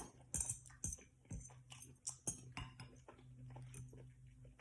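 Faint eating sounds: scattered light clicks of a utensil against a dish, with mouth noises of chewing, over a low steady hum.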